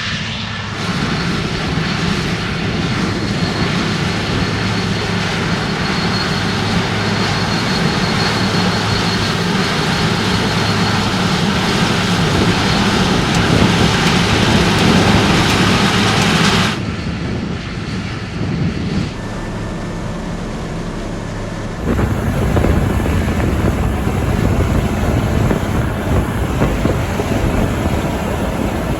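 New Holland combine harvester running while harvesting wheat: a steady engine hum under a dense threshing and machinery noise. The sound changes abruptly several times, near 17, 19 and 22 seconds in.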